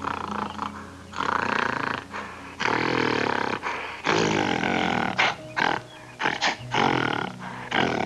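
A monkey calling: several harsh calls of about a second each, then a run of short, sharp calls, over steady background music.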